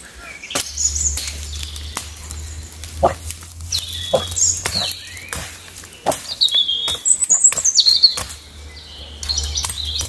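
Small birds chirping and twittering in pine woods, with scattered sharp cracks and crackles of dry twigs and branches being stepped on and handled. A low steady rumble runs underneath.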